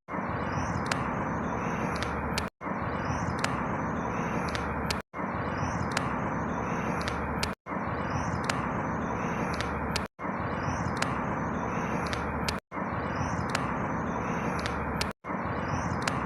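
Outdoor ambience of birds chirping over a steady hum of distant traffic. The same snippet of about two and a half seconds loops over and over, with a brief dropout to silence between each repeat.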